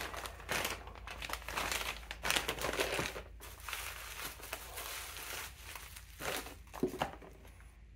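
Plastic bag and bubble wrap crinkling and rustling as they are pulled off a brake caliper by hand. Busiest in the first few seconds, then sparser.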